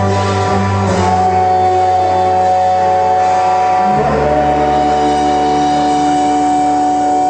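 Live art-rock band playing long held, droning chords. The low notes shift to a new chord about four seconds in.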